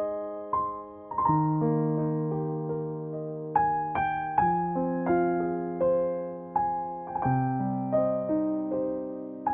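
Slow, gentle background piano music: single notes and soft chords, a new one struck every second or so and left to ring.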